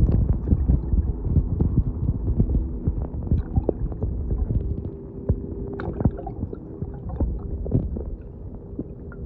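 Muffled underwater sound picked up by a camera microphone held beneath the surface: a low rumble of moving water with many small clicks and knocks and a faint steady hum, growing quieter in the second half.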